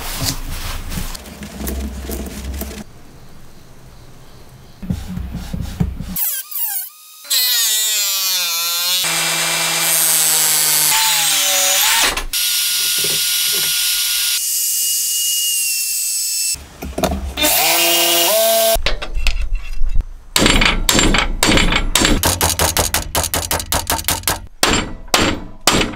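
Cordless power tools in short cuts: a motor winding down with falling pitch, then a Makita cordless circular saw running steadily and cutting wood, a motor spinning up again, and near the end a fast run of sharp knocks.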